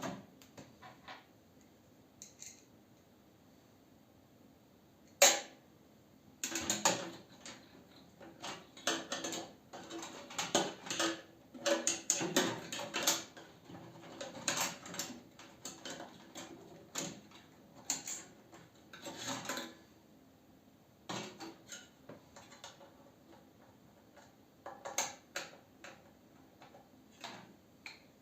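Irregular clicks, knocks and light metallic clatter of tools, screws and metal parts being handled while a microwave oven is taken apart. A single sharp knock about five seconds in is the loudest, the clatter is busiest over the following quarter-minute, and scattered knocks come near the end.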